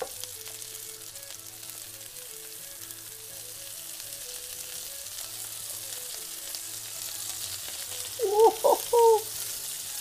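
Flour-dredged bass fillets sizzling as they fry in olive oil and melted butter, with quiet background music. About eight seconds in, three short, loud pitched sounds stand out.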